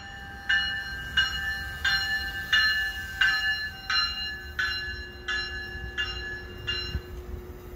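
Commuter train's warning bell ringing as the train pulls into the station, about three strikes every two seconds, stopping near the end. A low rumble runs under it, and a steady hum comes in about halfway.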